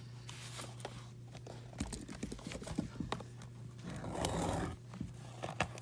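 Cardboard blaster box of trading cards being handled and opened: scattered light taps and clicks, with a short rustle a little past four seconds in.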